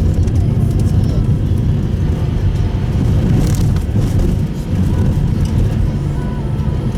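Steady low rumble of a car's engine and tyres on a snowy road, heard inside the cabin of a Subaru Impreza Sport, with a brief hiss about halfway through.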